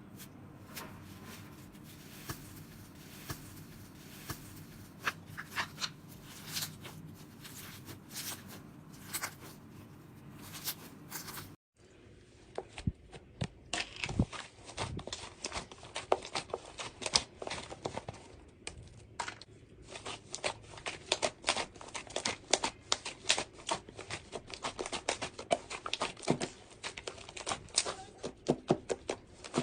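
Slime being squeezed and worked by hand, making a run of sticky clicks and pops. After a cut about a dozen seconds in, the clicks come faster and louder.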